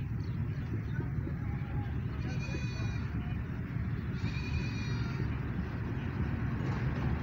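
ZCU-20 class diesel-electric locomotive approaching with a freight train: a steady low engine rumble, with two horn blasts of about a second each, the first about two seconds in and the second about four seconds in.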